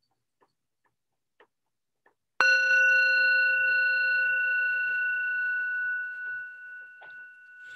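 Small hand-held metal singing bowl struck once with a wooden mallet about two seconds in, then ringing with several steady overtones that slowly fade. The strike marks the start of a moment of meditative stillness.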